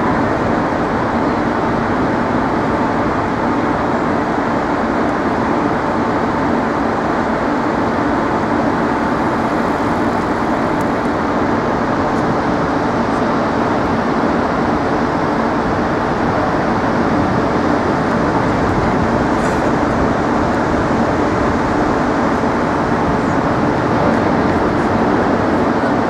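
Steady, loud city noise: a constant rushing din with a faint steady hum in it, unchanging throughout.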